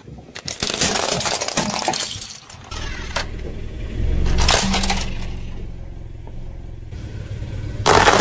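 A car tire rolling over and crushing plastic objects. There is a run of cracking and snapping as Rubik's cubes break, then one sharp crack and a low engine hum. Near the end comes a dense crackle as a pile of small balls is crushed.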